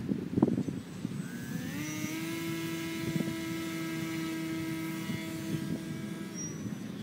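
Electric motor and propeller of a small foam FPV flying wing spooling up to a steady high-pitched whine as it is held for launch. Near the end the pitch drops and the sound fades as the plane is thrown and flies away.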